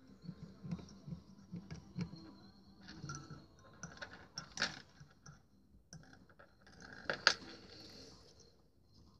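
Small clicks and handling noises of fingers working at a fly-tying vise and hook, with two sharper clicks about four and a half and seven seconds in.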